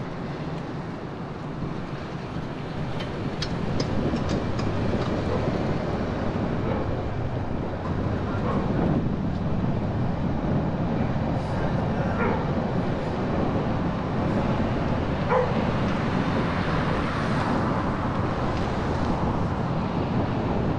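Steady engine and road noise of a car driving through city streets, with a few short clicks about three to four seconds in and a couple of brief higher-pitched sounds around the middle.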